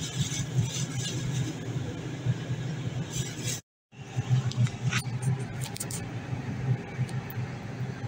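Steady low hum and rumble inside an enclosed observation-wheel gondola as it rides, with a short total dropout a little before the middle and a few light clicks afterwards.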